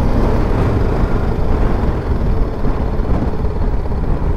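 Motorcycle rolling slowly at low speed with its engine running, heard under a steady low rumble of wind on the rider's microphone.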